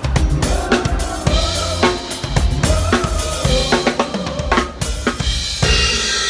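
Drum kit played along with a pop backing track: kick, snare and cymbal hits in a steady groove, which stop about five and a half seconds in while the backing track plays on.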